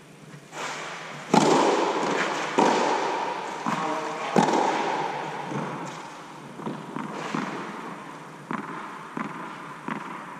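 Tennis ball sounds echoing inside an inflated air dome: a few loud, sharp hits with long echoes in the first half, with a steady high tone under them, then lighter taps about a second apart as a ball is bounced on the clay court before a serve.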